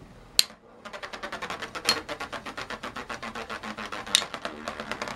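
Two spinning Beyblade tops, Tornado Pegasus and Tornado Lacerta, clattering against each other in a plastic stadium. There is a sharp clack just after the start, then a fast, steady run of clicks many times a second, with louder hits about two and four seconds in.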